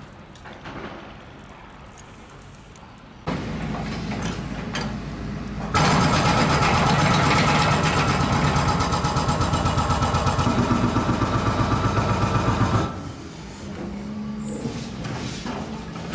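A motor vehicle engine running steadily with a fast, even pulse, loud from about six seconds in until about thirteen seconds, between stretches of quieter background noise.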